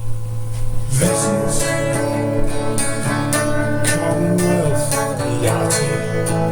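Instrumental music: a steady low drone, joined about a second in by plucked guitar notes, some of them bending in pitch, over a regular high ticking beat.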